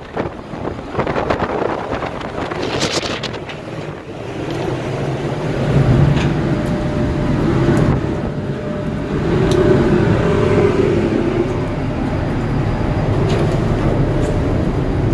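Strong wind and heavy sea rushing along a ship's side in rough weather, gusts above 30 knots. A deeper rumble swells in about four seconds in and stays loud.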